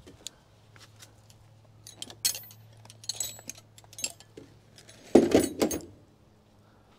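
Light metallic clinks and jingles as things are handled in an open pool heater's sheet-metal cabinet, then a louder knock and rustle about five seconds in.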